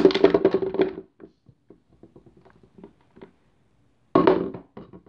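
Skateboard wheels clattering onto a wooden tabletop. A loud jumble of knocks comes in the first second, then scattered small knocks as they roll and settle, and a second clatter about four seconds in.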